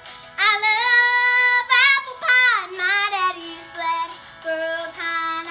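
A young girl singing the opening of a country song over recorded backing music; her voice comes in about half a second in, holding long notes.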